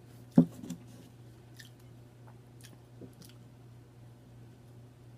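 Close-miked chewing and mouth noises of a person eating, with sharp lip-smack clicks now and then and one short, louder low thump about half a second in. A steady low hum runs underneath.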